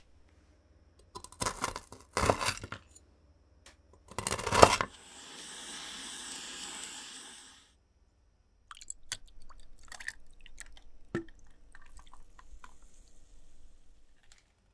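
Baked oat granola bar being pressed and broken by hand on a wooden board: several crisp crunches, the last and loudest about four seconds in, then a soft hiss for a few seconds. Later, a light, irregular crackle of fizzing tonic over ice in a glass, with a few small clicks.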